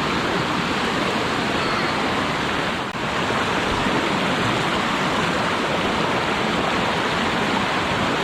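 A river rushing steadily, a loud continuous wash of flowing water.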